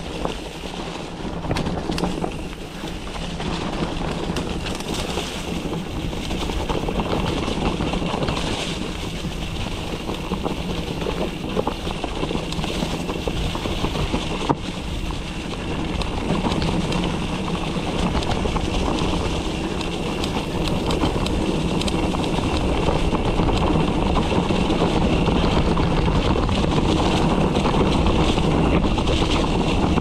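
Mountain bike descending a rough dirt trail: wind rushing over the helmet- or body-mounted action camera's microphone, with the tyres and bike rattling over the ground. It grows louder in the second half, with one sharp knock about halfway.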